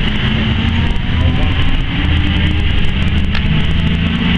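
Classic race cars' engines running at speed in a steady drone, one engine note climbing in pitch near the end. A brief click a little past three seconds in.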